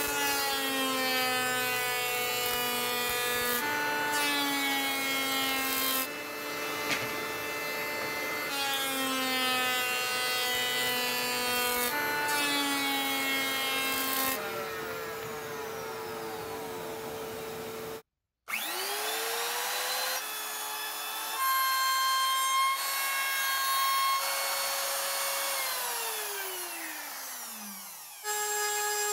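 Electric hand planer running as it shaves pine boards: the motor spins up, and its whine dips and shifts in pitch as the blade takes each cut. After a brief cut-off partway through, a power tool motor runs again and winds down with a falling whine near the end.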